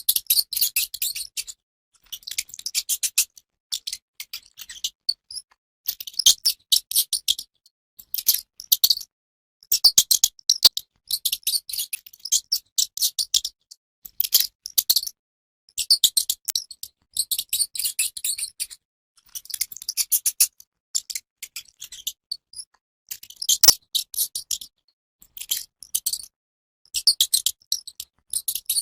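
Mouse sounds: repeated bursts of rapid, high-pitched clicking and chittering, each about a second long, broken by short silent gaps.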